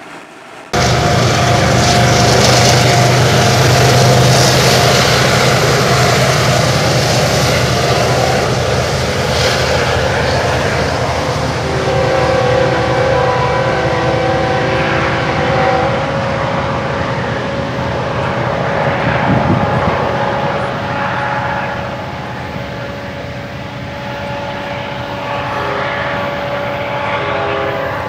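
Freight cars rolling across a girder bridge: a loud, steady rumble with several steady high ringing tones over it. It starts suddenly about a second in and eases slightly in the second half.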